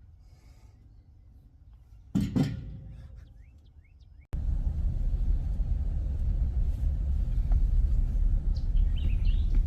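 A sudden loud thump that fades over about two seconds, with a few short bird chirps, then after an abrupt cut a steady low rumble.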